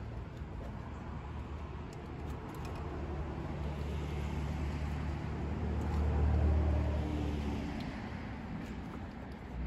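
A low rumble that swells about six seconds in and eases off again, with a few faint clicks from hands working at the ignition coil pack.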